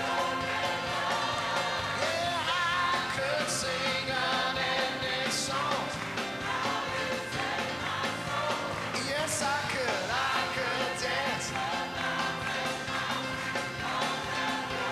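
Live worship band music with a harmonica playing a wavering, bending lead line over it.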